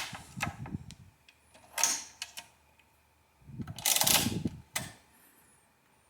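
Vaucanson AVA13 pinwheel calculator being handled: a few sharp mechanical clicks, a clack just under two seconds in, then a rattling, sliding clatter of about a second starting around three and a half seconds in.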